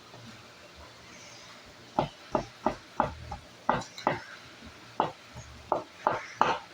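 A small hand tool tapping and chipping at a hard dig block to break out buried pieces: about a dozen sharp knocks at uneven intervals, starting about two seconds in.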